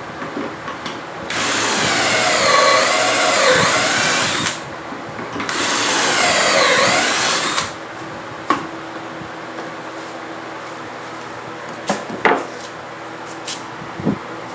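A power tool runs twice, about three seconds and then two seconds, its pitch dipping and recovering as it works through the wood. A few sharp knocks follow.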